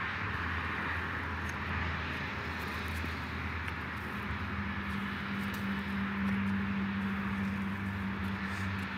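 Steady motor drone, like a running engine, with a low hum that steps up in pitch about four seconds in.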